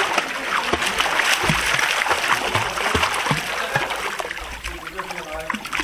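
Pool water splashing as a child kicks and paddles in an inner tube, many small splashes close together.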